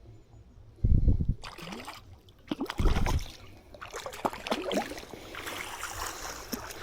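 Water splashing and sloshing as a hooked trout is brought into the landing net, with two dull thumps about one and three seconds in.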